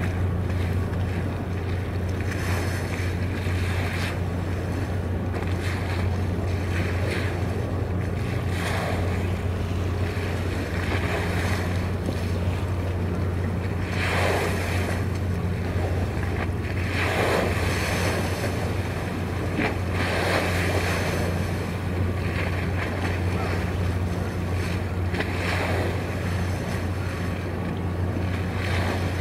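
Steady low hum of a ship's engine over the wash of the sea, with wind gusting on the microphone several times.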